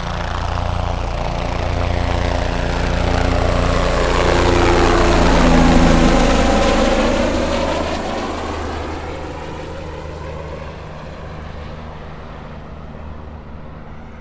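Helicopter flying past. Its rotor and engine noise swells to its loudest about six seconds in, with a sweeping whoosh, then fades steadily as it moves away.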